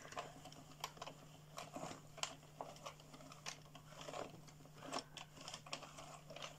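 Faint, irregular clicking of a small hand-cranked plastic circular knitting machine (addi) turned slowly, its needles moving up and down in the cam track as the waste yarn is laid on. A faint steady low hum sits underneath.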